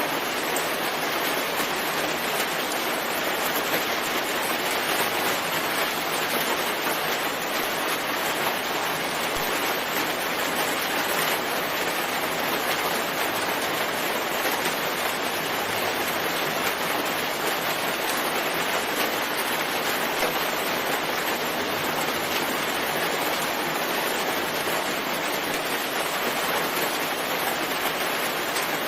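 Steady rain falling, an even rushing hiss that holds the same level throughout.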